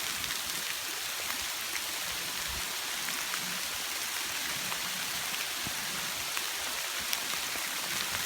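Hailstorm: a steady hiss of hail coming down, peppered with many sharp little ticks of single hailstones striking and bouncing.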